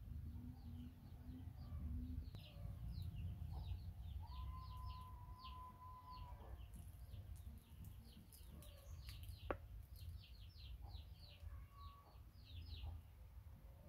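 Small birds chirping in short, quickly repeated calls throughout, over a low background rumble. A steady tone sounds for about two seconds a few seconds in, and a single sharp click comes a little past the middle.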